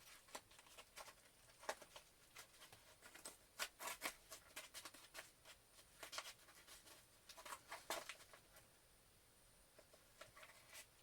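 A mail package being handled and opened by hand: faint scattered clicks and rustles, thinning out near the end.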